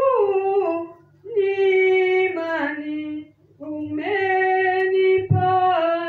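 A woman singing unaccompanied into a handheld microphone, in long held phrases that slide down in pitch at their ends, with short breaths between. A brief low thump about five seconds in.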